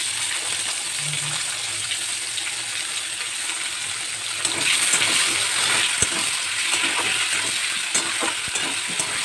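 Potatoes frying in hot oil in a pan, sizzling steadily while being stirred, with a few sharp knocks of the spatula against the pan. The sizzle grows louder about halfway through.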